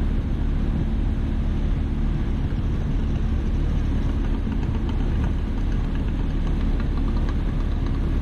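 Rooftop HVAC unit running: a steady, unbroken low machine drone with a constant hum.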